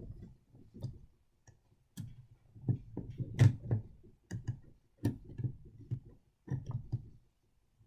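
Irregular clicks and light knocks of a model train being handled and pried at while its carriages are wedged apart, loudest about three and a half seconds in.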